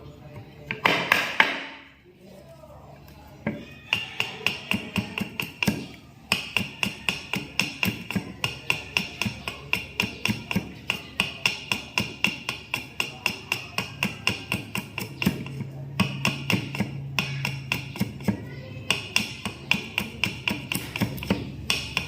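Background music with a steady fast tapping beat, about three to four taps a second, over a held high tone, pausing briefly a few times.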